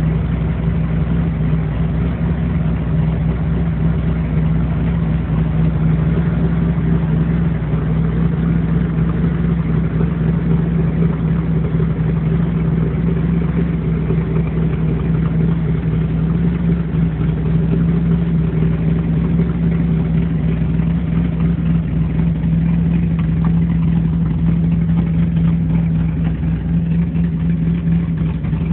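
Ford 428 Cobra Jet V8 with twin four-barrel carburetors idling steadily, with an even, unchanging engine note and no revving.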